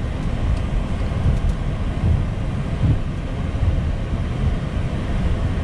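Steady low rumble and hiss inside a Boeing 737-800 flight deck as the airliner taxis.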